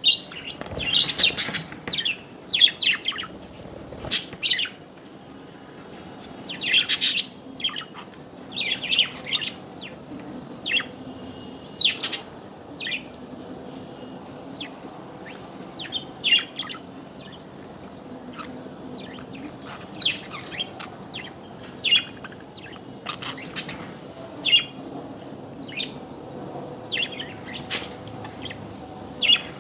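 Small birds chirping: many short, high calls at irregular intervals, closely packed for the first several seconds and sparser after that.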